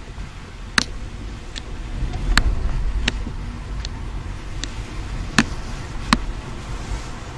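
A car's turn-signal indicator clicking steadily, about once every three quarters of a second, heard inside the cabin over the low rumble of tyres on a wet road. The clicking stops about six seconds in.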